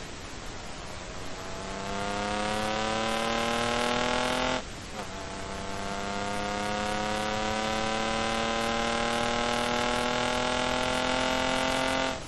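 Engine of an engine-swapped BMW E28 pulling hard on track: its pitch climbs steadily, it drops abruptly with an upshift about four and a half seconds in, then climbs slowly through a long pull in the next gear until the throttle lifts near the end.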